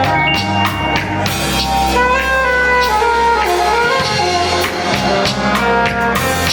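Live band playing a smooth, jazz-leaning instrumental passage: drum kit keeping time under a bass line, with a melodic lead line that slides in pitch through the middle.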